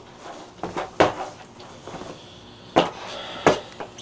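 Skateboard knocking against a carpeted floor during ollie attempts: a few sharp wooden clacks of the tail and wheels hitting down, the loudest about a second in and two close together near the end.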